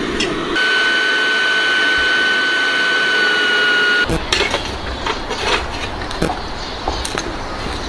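Butane blowtorch flame hissing steadily with a high whistle, aimed into a charcoal chimney starter to light the coals. It cuts off abruptly about four seconds in and gives way to scattered knocks and clicks.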